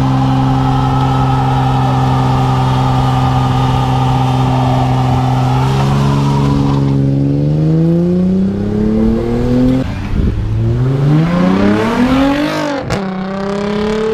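A car engine running at steady revs, then accelerating with its pitch climbing, dropping back twice as it shifts up a gear, the second time with a sharp break.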